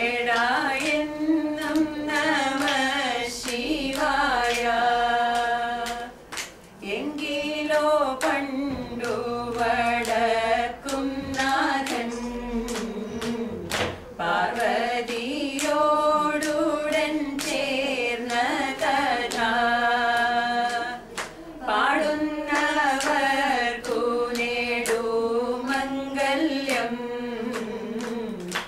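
Women singing a Carnatic-style song together, the melody held and bending through long phrases, with scattered sharp clicks.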